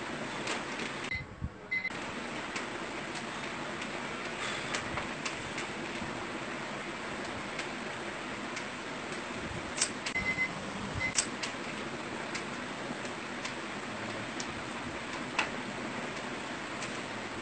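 Steady background hiss with a few short, sharp clicks scattered through it, the loudest a cluster about ten to eleven seconds in; the hiss drops out briefly about a second in.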